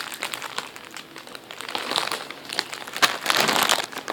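Plastic crinkling and rustling as a squishy toy is handled and squeezed, in uneven bursts that are loudest about two seconds in and again near the end.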